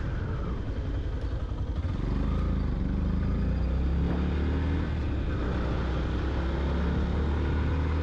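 Yamaha FZ-X motorcycle running steadily at road speed, its single-cylinder engine and the ride giving a low, continuous rumble that picks up slightly about two seconds in.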